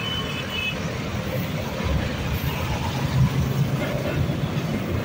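Steady road traffic of cars, motorcycles and auto-rickshaws, with a louder pass about three seconds in. Near the end a suburban electric multiple-unit train begins rolling by on the neighbouring track.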